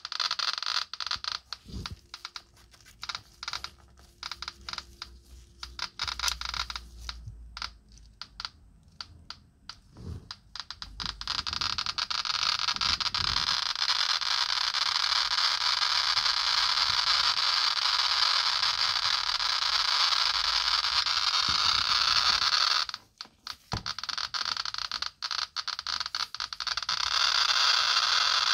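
Geiger counter clicking with its probe held against pitchblende uranium ore. The clicks come irregularly at first, then about twelve seconds in crowd together into a continuous hiss at a very high count rate. Near the end they thin out briefly to separate clicks and then rush together again.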